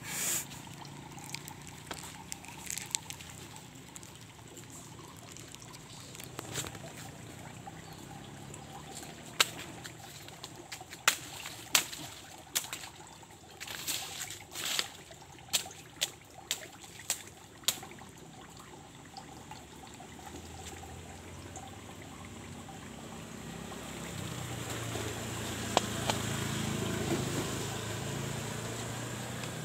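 Water trickling, with a run of sharp clicks and taps through the middle. A low engine hum builds up toward the end.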